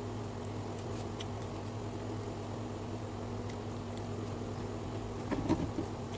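Faint eating sounds over a steady low hum: chewing, and a few light clicks as wooden chopsticks handle sushi in a plastic container. There is a short, louder mouth noise a little after five seconds in.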